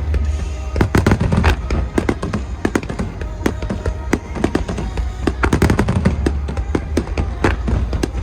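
Fireworks bursting in quick, irregular succession, sharp cracks and crackling over a steady deep rumble, with music playing along with the show.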